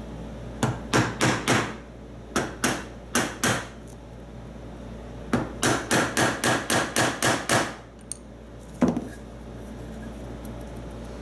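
A small plastic hammer tapping a quarter-inch wooden dowel, used as a drift to drive a stubborn screw out of a dovetail saw's wooden handle. Quick taps come in groups: four, then four more, then a run of about ten, and one last single strike near the end.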